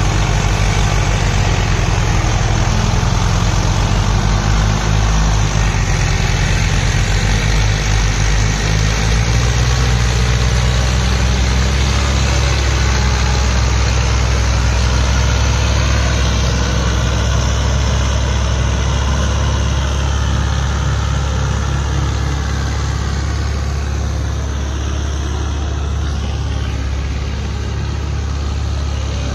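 Diesel tractor engines running steadily under load, a low drone that shifts in pitch about nine seconds in, as a Mahindra Arjun tractor tows a Swaraj 744 FE out of mud.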